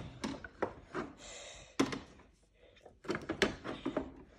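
Dolls and plastic dollhouse pieces being handled: light clicks and knocks against the dollhouse, a brief rub about a second in, a sharp knock near the middle and a quick run of taps near the end as a doll is set into its toy bed.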